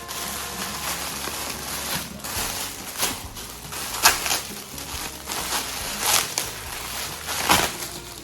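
Gift packaging being handled and opened: crinkling and rustling, with sharper rips about three, four, six and seven and a half seconds in.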